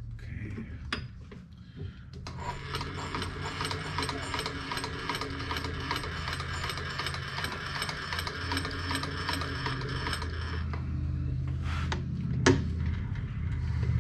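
Milling machine table being driven along its axis: a fast, even mechanical clicking and whirring that runs for about eight seconds over a low steady hum, then stops, followed by a single sharp click near the end.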